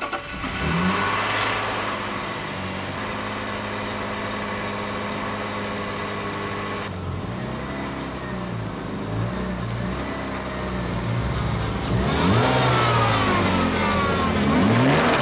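BMW E36 M3's S52 straight-six engine idling steadily, then revved in short blips from about eight seconds in, with louder rising and falling revs near the end as the car pulls out of the garage.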